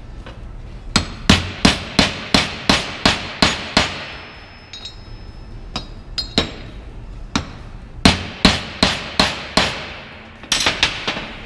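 Hammer blows on a socket used as an improvised driver, knocking a bearing race down into a Lada steering box's aluminium housing. The sharp strikes come in runs of about three a second, a first run of about nine, a few lighter taps, then two more runs near the end.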